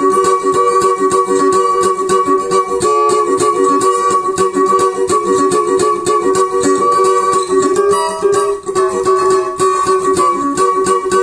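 Cavaquinho with a Brasa Som pickup, strummed fast and continuously through a chord progression across all the strings. Played amplified through the pickup, it sounds heavy and strong.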